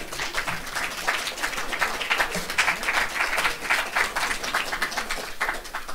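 Audience applauding: many hands clapping together, thinning out near the end.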